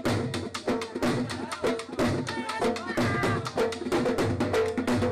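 Dhol drum beating a fast, driving jhumar dance rhythm, with dense strokes and louder accents about twice a second. A pitched melody plays over the drumming.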